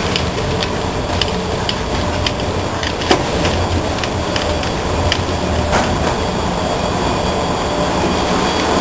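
Footsteps and clatter of several people walking along an enclosed gangway, with irregular knocks over a steady low rumble and hiss.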